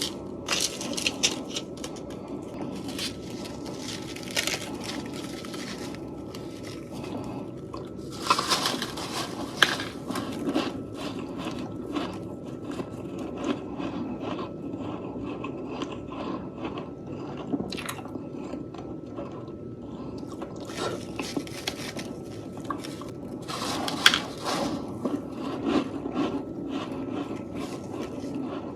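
A person biting and chewing fresh freezer frost, grown in the freezer with a humidifier. Loud clusters of crunches come every few seconds over steady chewing.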